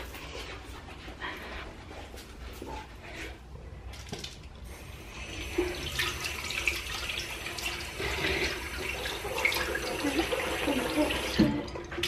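Water running from a sink tap, coming on about five seconds in and stopping just before the end, with a few light knocks and clicks before it.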